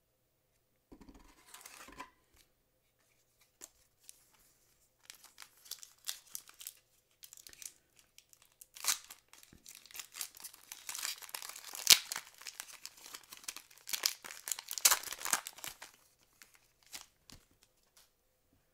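A Fleer Ultra trading-card pack's foil wrapper being torn open and crinkled by hand. After a brief rustle near the start, crackling crinkles build, peak in the middle with one sharp snap, rise again, then stop a few seconds before the end.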